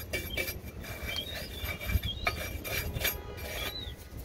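Small hand wire brush scraping rust off the steel backing plate of a drum brake, in quick repeated strokes about three or four a second, cleaning the brake shoe contact points.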